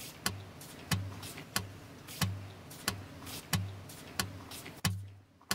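Footsteps on a hard floor at a steady walking pace, each step a short thud with a click, stopping about five seconds in.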